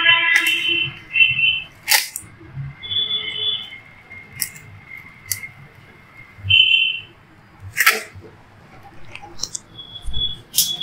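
Several short, high electronic beeps at irregular gaps of a second or few, with sharp crackles and clicks of the foil carrier and paper sheet as the gold-foiled sheet feeds out of a roll-to-roll thermal laminator.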